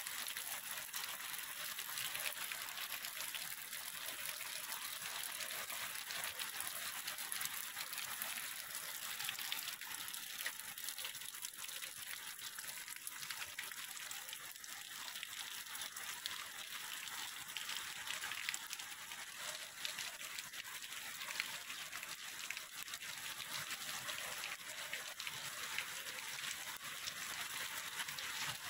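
Heavy tropical rain falling steadily, a dense even hiss of drops with many small ticks, mixed with the rush of runoff in a flooded canal.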